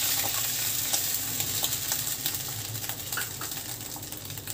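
Water sizzling and bubbling in a hot non-stick frying pan of butter-fried diced capsicum and garlic, just after a cup of water was poured in; a steady hiss with scattered small pops that slowly dies down as the water heats.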